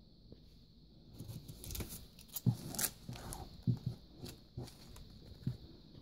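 Clear cellophane sleeves around paper craft tags crinkling and rustling as they are picked up and moved. A few short knocks come as they are set down.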